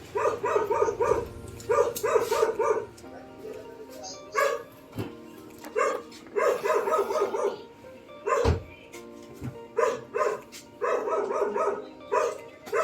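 A dog barking over and over in quick runs of short, high barks, with pauses between the runs. There are two dull thumps about midway.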